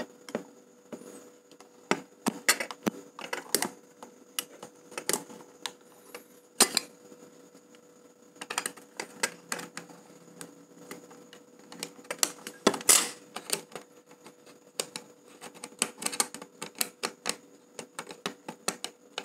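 Irregular clicks, taps and light scrapes of small plastic camera parts as the Canon EOS 650D's flip-out LCD screen panel is handled and fitted to the body, with one louder scrape about two-thirds of the way in. A faint steady hum runs underneath.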